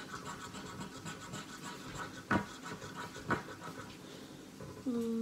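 A coin scratching the coating off a lottery scratch-off ticket in quick repeated strokes, with two sharp taps in the middle.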